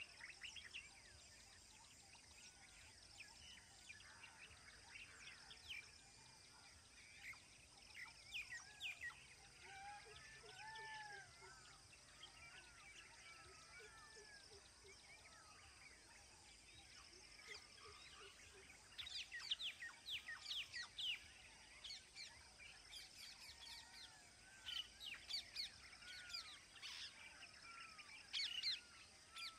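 Many birds calling: quick downward-sweeping chirps and short arched whistled notes, busiest in the second half. A faint steady high-pitched hum lies underneath.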